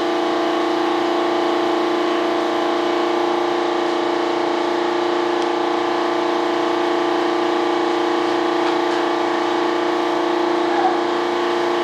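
Steady machine hum in a workshop: one strong unchanging tone with its overtones, with no rise or fall.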